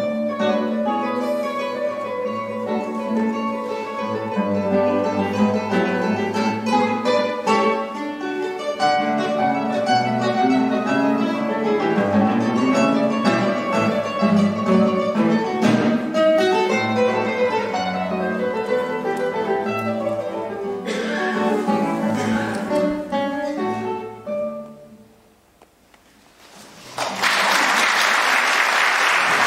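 A duo of classical guitars playing a piece with many plucked notes, which ends about 24 s in and rings away into a short hush. Audience applause breaks out about 27 s in.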